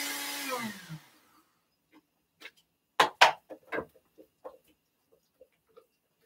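Countertop blender motor spinning down and stopping about a second in, its pitch falling as it slows. Around three seconds in, a few sharp knocks and clatters as the blender jar and lid are handled, then a few faint taps.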